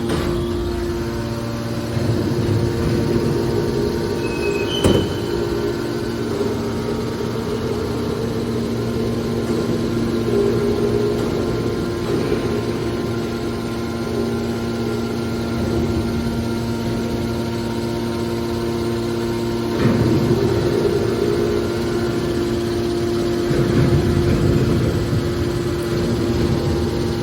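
Hydraulic baler's motor and pump running with a steady hum, with a sharp clank about five seconds in and louder spells of rumbling around twenty and twenty-four seconds in.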